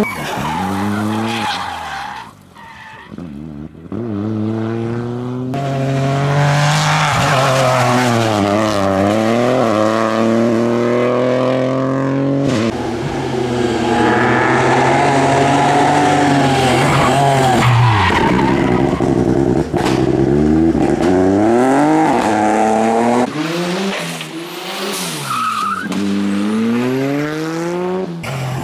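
Rally cars at speed on a tarmac stage, engines revving hard and falling away again and again as they shift gear, brake and power out of corners, with tyre noise on loose grit. Several passes follow one another with abrupt changes between them.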